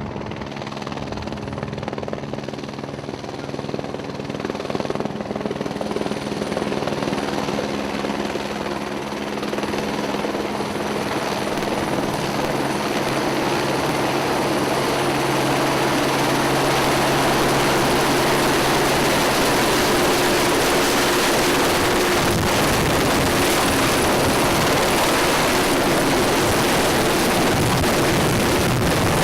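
Helicopter drawing near and hovering, its rotor sound growing louder over the first half and then holding as a steady loud rush.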